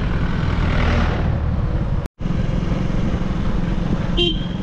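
Steady engine and road noise of a vehicle driving on a mountain road, with a short horn toot near the end. The sound cuts out for an instant about two seconds in.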